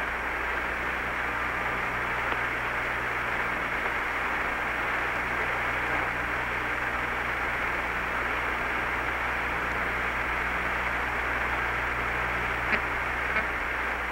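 Steady hiss and low hum of the Apollo 11 air-to-ground radio channel with no one transmitting, with two faint clicks near the end.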